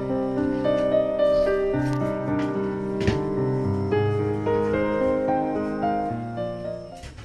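Background music led by piano, a gentle melody of sustained notes that fades out near the end.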